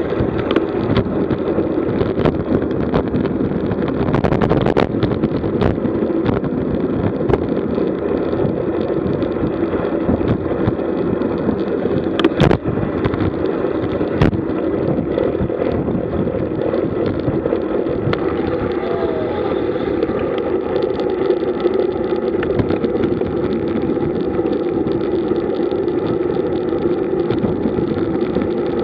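Wind rushing over the microphone and road noise from a camera on a road bike moving at speed in a group ride. Scattered clicks and knocks come from bumps in the road, the loudest about twelve seconds in.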